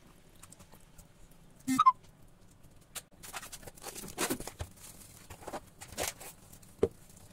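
Cling film drawn off its roll and stretched over a steel bowl of marinated chicken, giving a run of irregular crinkling and rustling from about three seconds in, with a sharp click near the end. A brief loud squeak comes a little before two seconds in.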